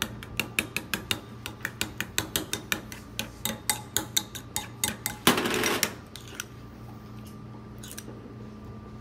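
A utensil clicking quickly against a mixing bowl, about five strikes a second, as Thousand Island dressing is stirred. About five seconds in there is a short scraping rush, and then the clicking stops.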